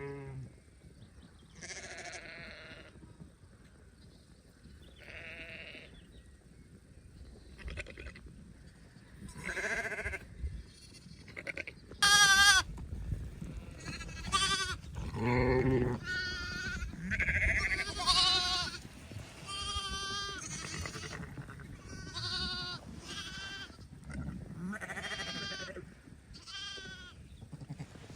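Sheep bleating again and again, some fifteen separate quavering calls; the loudest comes about twelve seconds in.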